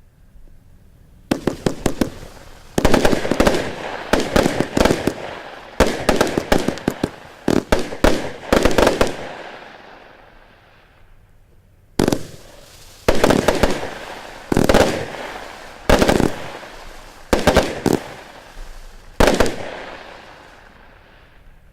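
Exxclusive Black Spider compound firework cake firing rapid volleys of sharp reports. The shots come in two runs of about eight to nine seconds each, with a pause of roughly two seconds near the middle.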